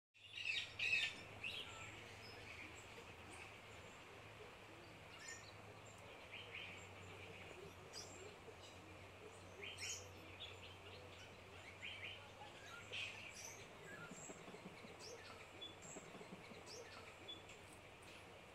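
Faint outdoor ambience of birds chirping, with many short scattered calls, loudest about a second in, over a faint steady low hum.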